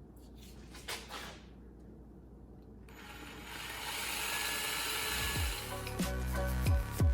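A few light clicks, then a power drill runs steadily from about three seconds in, boring a pilot hole. Hip-hop music with deep gliding bass comes in over it about two seconds later.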